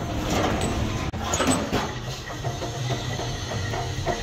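Workshop machinery running with a steady low hum, with a few faint metal clinks.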